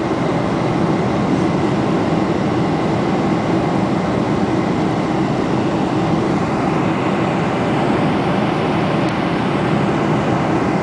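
Steady cabin noise inside a Boeing 747-400 airliner: a constant rush of airflow and a low drone of the engines, with the hiss easing slightly past the middle.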